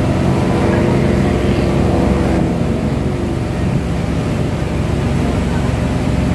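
Motorboat engine running steadily under way, heard from on board over the rush of wind and water, its pitch sagging slightly a couple of seconds in.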